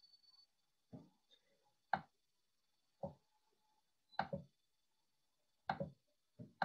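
A computer mouse being clicked, about six short, sharp clicks roughly a second apart, some doubled, under a faint steady high whine.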